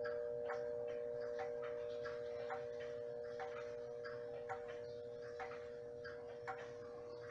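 Herschede nine-tube grandfather clock ticking steadily at about one beat a second, over the hum of its chime tubes slowly dying away.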